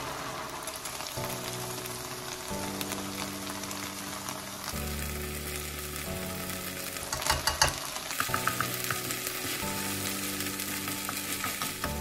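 Sausage and leek sizzling in a nonstick frying pan, stirred with a wooden spoon, under background music. A few sharp clicks of the spoon against the pan come about seven seconds in.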